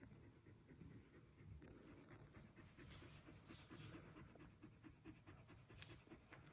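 Border Collie bitch panting faintly and steadily, about three breaths a second, while nursing her day-old litter.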